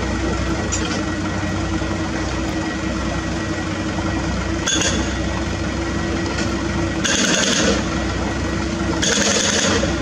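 Diesel engines of a working mini excavator and an idling dump truck running steadily, with a few short bursts of hiss-like noise in the second half, the longest around seven and nine seconds in.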